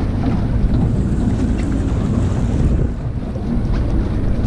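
Wind buffeting the microphone over the wash of the sea around a small boat: a loud, steady rumble and hiss.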